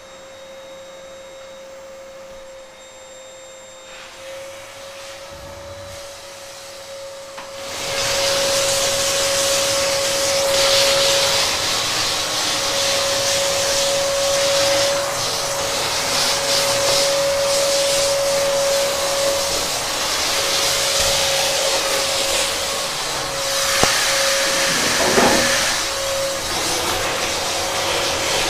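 Lit insecticide fumigation cartridge burning: a steady whistle, then about eight seconds in a loud rushing hiss sets in and carries on, the whistle still sounding over it.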